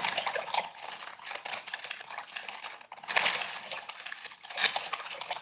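Electroacoustic sound preset from an interactive sensor sound system playing back: a dense, crackling patter of many small clicks and taps. It cuts off suddenly at the end.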